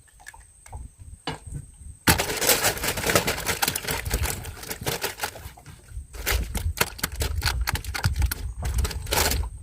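Dense, irregular clattering and tapping that starts suddenly about two seconds in, after a few single clicks, with brief pauses near the middle and near the end.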